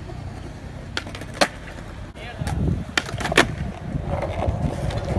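Skateboard wheels rolling over concrete with a steady rumble, and four sharp clacks of the board striking the ground: about a second in, half a second later, and twice close together around three seconds in. The rumble grows louder just before the last two clacks.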